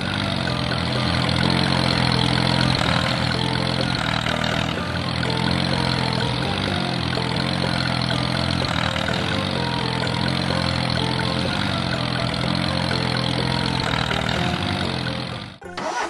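An engine idling steadily with a low, even hum, like a tractor at idle. It breaks off briefly near the end.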